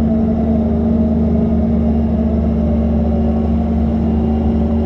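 Doosan DX140 excavator's diesel engine running steadily under load as the machine climbs a steep slope, a test of whether the newly adjusted drive now pulls strongly.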